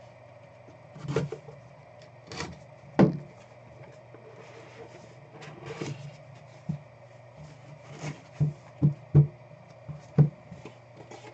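Cardboard trading-card hobby box being cut open and handled: shrink wrap slit with a blade, the lid lifted off and the packs reached for. This gives a string of irregular taps, knocks and scuffs against the table, the loudest about three seconds in and several in quick succession near the end, over a steady low hum.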